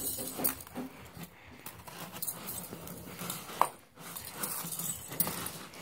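Ferret scrabbling in a tub of dry rice: an irregular rustle of shifting rice grains with small clicks of the plastic toy balls. About three and a half seconds in comes one sharper click with a short ring.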